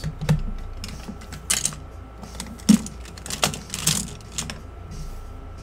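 Hard plastic trading-card holders clicking and tapping against each other and the table as they are handled and set down. There are about half a dozen sharp clicks, with one heavier knock a little before halfway.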